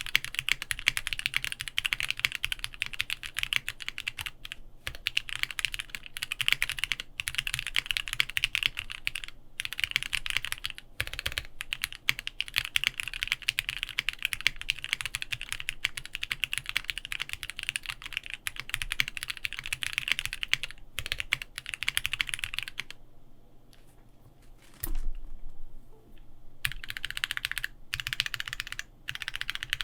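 Fast, continuous typing on a custom Bakeneko60 mechanical keyboard with an FR4 plate, lubed Gateron Ink Black V2 linear switches and GMK keycaps. It has brief pauses and a quieter lull of a few seconds near the end, broken by one louder knock, before the typing picks up again.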